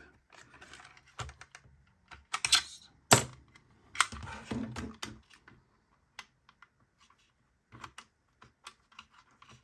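Small plastic parts of a model steering linkage being handled, pulled apart and refitted by hand: irregular light clicks and taps with some rustling, and one sharper click about three seconds in.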